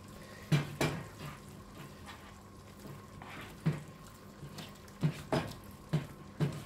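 A spatula stirring baby-fish stew in coconut milk in a frying pan: a wet, sloshing stir with a handful of sharp knocks of the spatula against the pan, several close together near the end.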